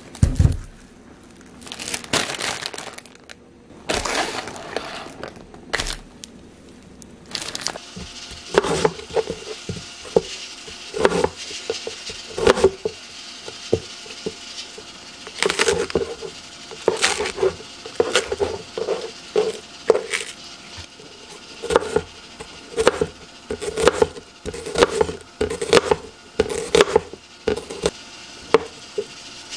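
Kitchen prep: a few crinkling, rustling bursts in the first seconds, then a knife knocking on a cutting board in many short, irregular strokes.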